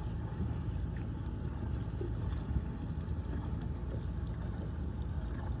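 Boat engines running with a steady low rumble, with wind buffeting the microphone.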